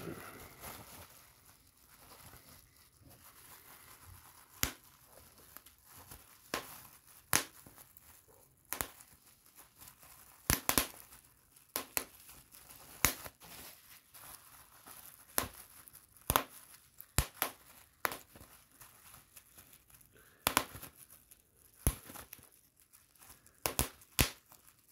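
Plastic bubble wrap crinkling, with sharp single pops of its air bubbles bursting. The pops begin a few seconds in and come irregularly, about one a second, some in quick pairs.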